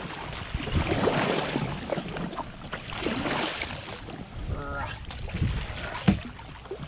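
A kayak paddled through a thick mat of lily pads: irregular paddle splashes and pads rustling and dragging against the hull, with wind on the microphone. A sharp knock about six seconds in, likely the paddle striking the hull.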